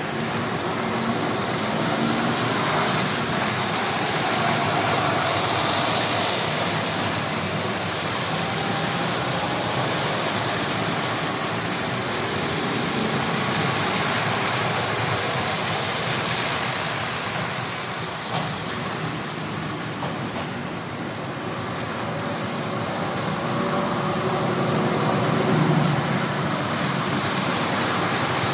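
Articulated lorries driving slowly past one after another: diesel engines running with steady tyre noise on wet tarmac, swelling louder near the end as a lorry comes close.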